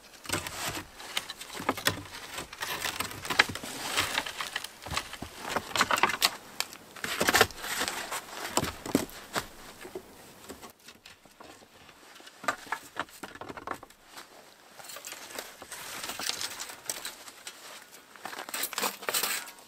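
Irregular rustling and crackling from handling, with many sharp clicks, coming in bouts with a quieter stretch about halfway through.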